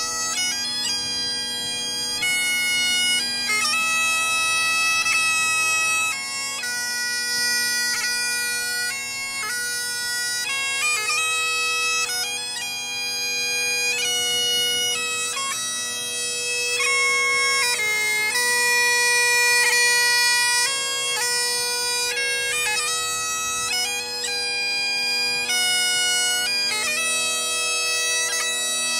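Great Highland bagpipes playing a melody over their steady drones, the chanter moving between held notes with quick grace notes.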